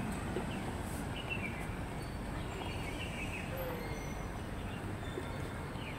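Steady city street ambience: a low hum of road traffic, with a few faint bird chirps between about one and three and a half seconds in.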